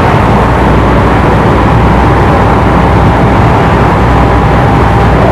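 Large industrial ventilation fan running: a loud, steady rushing noise with a steady high whine that never changes.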